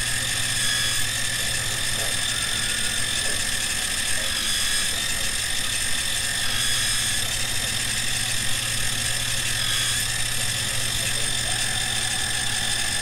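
CNC-converted benchtop milling machine running as it peck-drills holes in a metal part: a steady machine whine with several held tones and no pauses.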